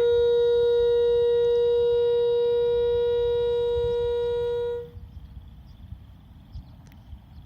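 Viking Horns triple air train horn near the end of a tank dump: two of its three notes drop out, leaving a single horn sounding one steady note that slowly weakens as the air tank runs down to zero, then cuts off about five seconds in.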